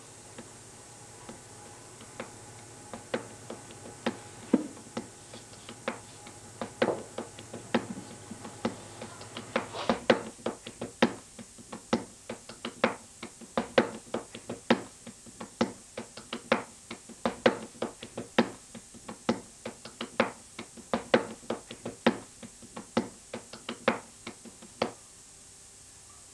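Hands slapping and patting a sheet of saj flatbread dough to stretch it thin: a run of sharp slaps, sparse at first, then a steady two or three a second from about ten seconds in, stopping just before the end.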